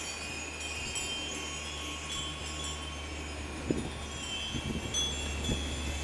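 Small metal chimes hanging from a Buddhist temple's roof eaves, ringing irregularly in the wind as many overlapping high tones. A low wind rumble on the microphone runs underneath, with a few low bumps in the second half.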